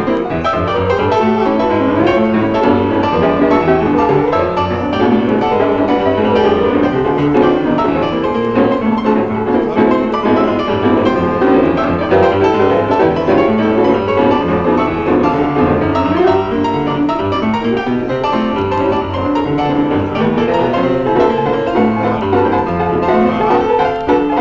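Solo stride piano playing the chorus of a tune, with dense chords and melody sounding without a break.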